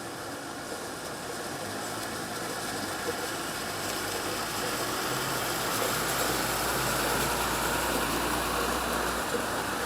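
Street noise with a motor vehicle's engine running, growing slowly louder and then easing off slightly near the end.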